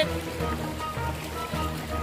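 Background music with a steady beat and held notes, with a brief click at the very start.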